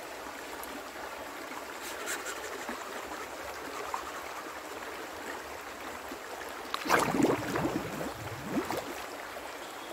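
A river stream flowing steadily, with a burst of splashing and sloshing about seven seconds in, lasting under two seconds, as a person dunks under the water.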